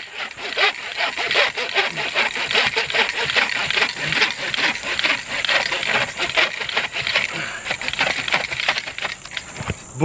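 Zippo Axe Saw's folding saw blade cutting a dry branch with fast, even back-and-forth strokes, a steady rasping, until the strokes stop just before the end as the piece is cut through.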